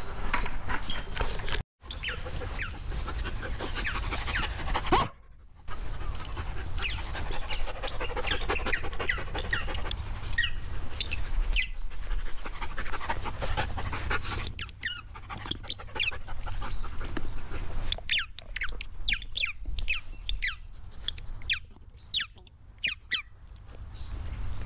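Red KONG rubber squeaky ball squeaking again and again as a dog chews it, the squeaks coming thick and fast near the end. Two brief dropouts to silence early on.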